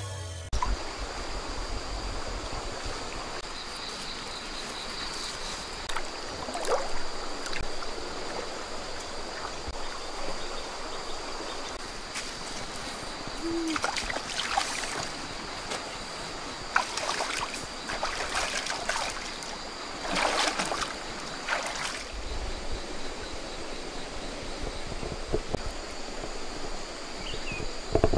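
Feet wading through shallow, muddy water, with several short bursts of splashing and sloshing over a steady, trickling water background.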